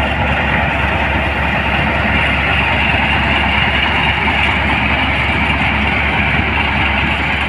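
Engine-driven rice thresher running steadily, a loud constant mechanical drone with no change in pace.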